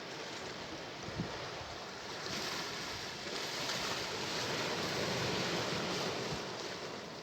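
Sea surf: a wave's rush swells about two seconds in, is loudest in the middle and eases off near the end. A brief low thump sounds just over a second in.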